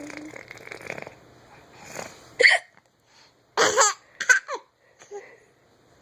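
A woman hiccuping: three loud, sharp hiccups between about two and a half and four and a half seconds in, then a fainter one.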